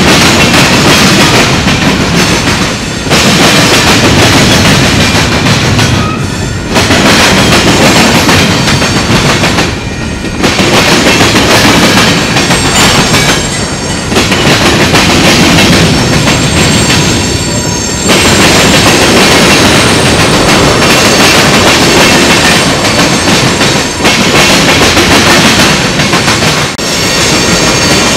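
Freight train of covered hoppers and tank cars rolling past close by, steel wheels clattering over the rails. Loud and continuous, with brief dips every few seconds.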